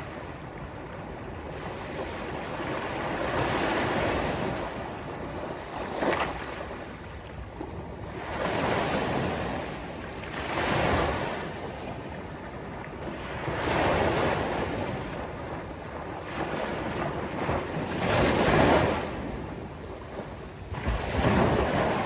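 Sea waves breaking on a beach, one after another, each swelling up and washing back every few seconds; one breaks with a sharper slap about a quarter of the way in.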